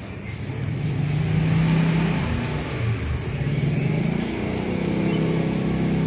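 A motor vehicle's engine running, a low hum whose pitch rises and shifts as it revs.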